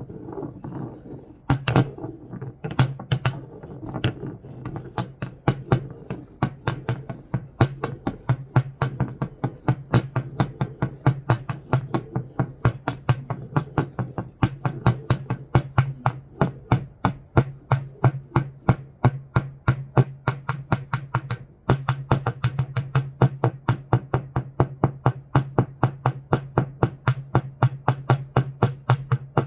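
Noise music: rocks tapped in a fast, even pattern of sharp clicks, about four a second, over a steady low electronic hum. Everything drops out briefly about 21 seconds in.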